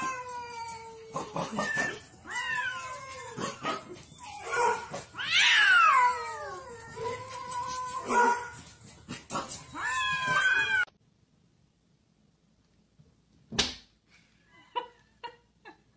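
Two cats caterwauling at each other in a standoff: long, wavering yowls that rise and fall in pitch, one after another. The yowls cut off suddenly about two-thirds of the way in. After that comes a single sharp click and a few faint short sounds.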